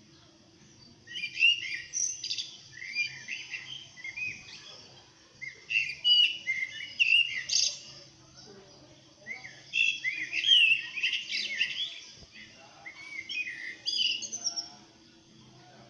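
Small songbirds chirping and twittering rapidly, in four spells with short pauses between them. It is a recorded nature soundtrack played back through a phone speaker, with a faint steady hum underneath.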